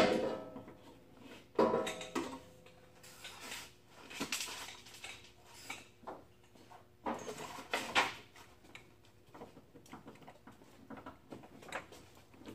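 Metal tools clanking against the rusted rear shock mounts of a Jeep Cherokee XJ as the shock bolts are worked loose. A sharp metallic bang comes at the start and a ringing clank about a second and a half in, with scattered lighter clinks after.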